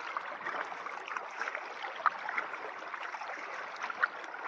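Kayak paddle strokes in calm canal water: steady water noise with small drips and splashes here and there, the sharpest about two seconds in and again near four seconds.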